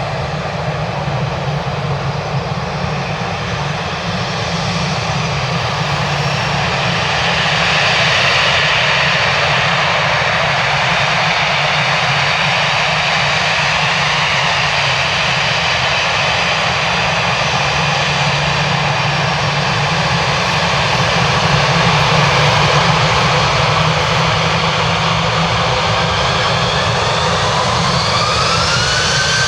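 Airbus A318's CFM56 turbofan engines running with a steady whine, their tones rising in pitch near the end as the engines spool up for take-off.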